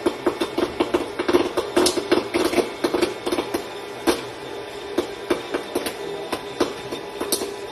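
Rapid, irregular tapping or clicking, several sharp knocks a second, with a faint steady hum underneath.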